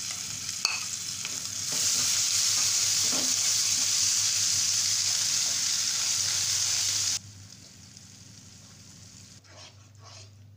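A wet onion, garlic and tomato masala paste sizzles in hot oil and spices in a non-stick frying pan while it is stirred with a spatula. This is the masala being fried for a curry gravy. The sizzle grows much louder about two seconds in and cuts off sharply around seven seconds, leaving a much quieter hiss.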